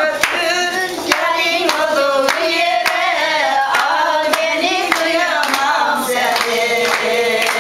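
Women singing a Turkish folk song (türkü) together, with steady hand clapping in time, about two claps a second.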